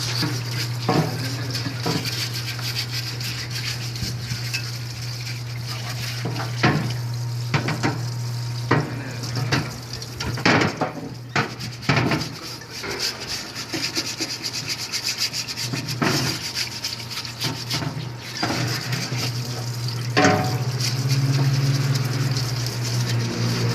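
A metal-parts washing machine running: a steady motor or pump hum under a hiss, with irregular clanks and rattles of metal parts. The hum grows stronger near the end.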